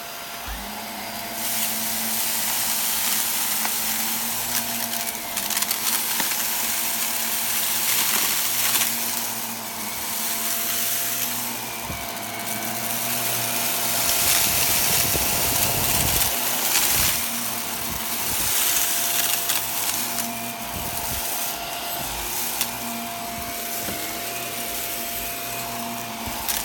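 Shark vacuum cleaner running: a steady motor whine over rushing air, swelling and easing off as it works.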